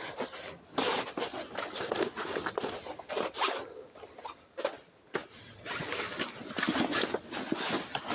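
Stiff plastic banner sheet rustling and scraping in quick, uneven strokes as it is handled and tucked along the tent's edges.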